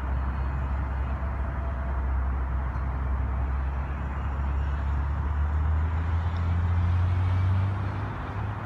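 City traffic noise: a steady rush with a strong low engine hum. The hum rises a little in pitch and grows louder about two-thirds of the way through, then eases near the end.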